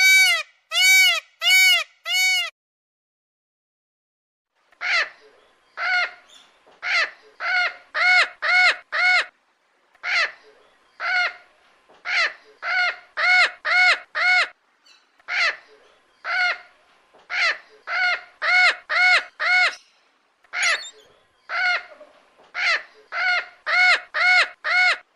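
A bird calling over and over in short, loud, clear calls that each rise and fall in pitch. Four come in quick succession, then after a pause of a couple of seconds they go on, some singly and some in quick runs of three or four.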